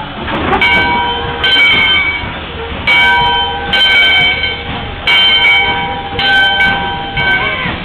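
Steam locomotive's bell ringing before departure, a slow clang repeating about once a second, each strike ringing on.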